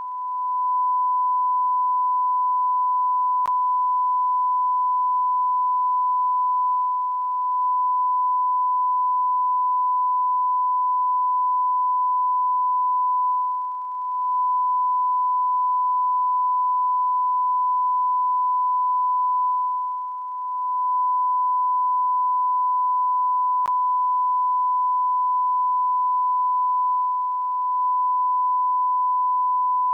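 A continuous electronic beep: one steady, high-pitched pure tone, held without a break and dipping slightly in loudness every six or seven seconds.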